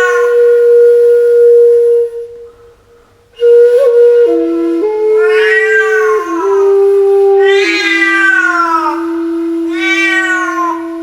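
Bamboo flute playing long held notes, breaking off about two seconds in and resuming with a few lower sustained notes, while a cat meows over it three times, each meow rising and then sliding down.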